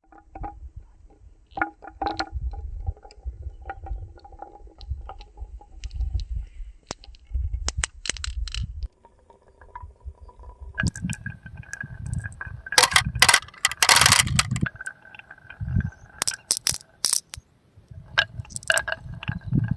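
Marbles rolling and clattering down a wooden marble run: a low rolling rumble broken by many sharp clicks and knocks. The clatter grows busiest and loudest in the second half.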